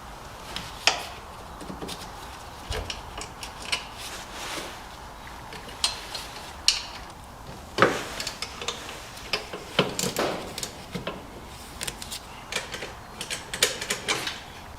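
Irregular metal clinks and knocks of hand tools and parts as the race car's gear selector linkage is taken apart, the loudest knocks about 8 and 10 seconds in.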